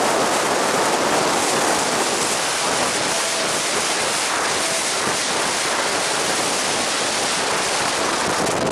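Steady, loud rush of wind and road noise in a moving Toyota Auris at speed. It cuts off suddenly at the end.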